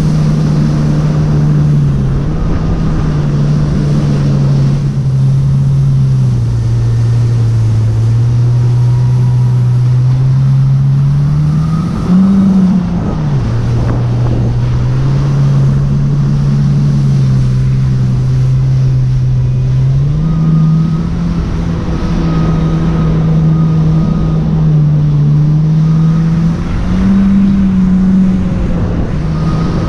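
Jet ski engine running at speed, its steady drone easing lower for a few seconds at a time and rising again, with brief revs about twelve seconds in and near the end. A steady rush of water and wind runs underneath.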